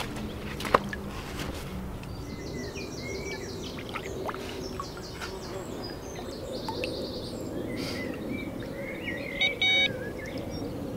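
Songbirds singing short repeated high trills several times over a steady outdoor background noise, with a brief louder sound just before the end.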